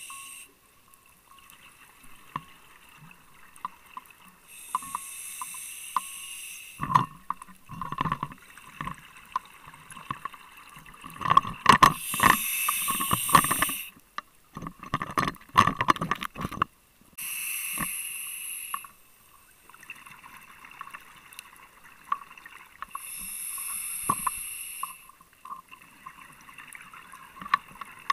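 Scuba diver breathing through a regulator underwater: a rush of exhaled bubbles four times, about every six seconds, with small clicks and crackles in between.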